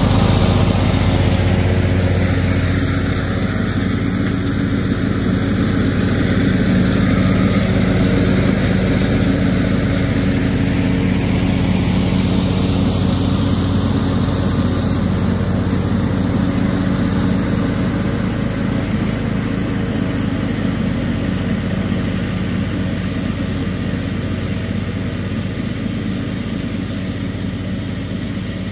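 John Deere riding lawn mower running steadily while mowing grass, its engine hum loudest as it passes close and then slowly fading as it drives away.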